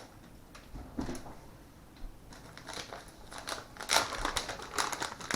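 Hands handling small parts and tools at a workbench: a series of small clicks and crinkly rustles, few at first, then thick and sharper from about halfway through.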